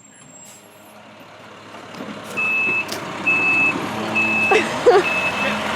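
A vehicle's reversing alarm beeping at one high pitch, a little faster than once a second, over the steady noise of a running vehicle that grows louder over the first two seconds.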